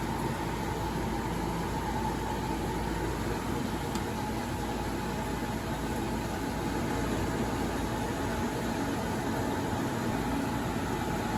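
Agricultural produce dryer running: a steady mechanical hum with a constant whine.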